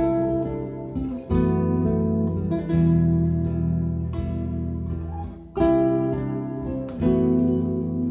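Acoustic guitar music: plucked and strummed notes ring out, with fresh attacks about a second in, near three seconds, around five and a half seconds and near seven seconds.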